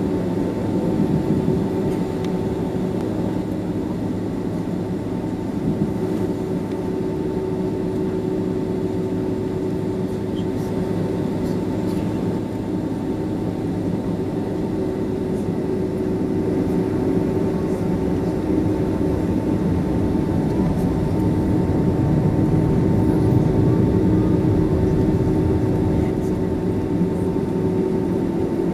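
Cabin noise of a Boeing 767-300ER taxiing: the jet engines' steady low rumble with a constant high whine over it, heard from inside the cabin.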